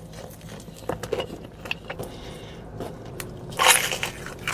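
Close-miked eating: small mouth and food clicks, then a loud crunching bite about three and a half seconds in.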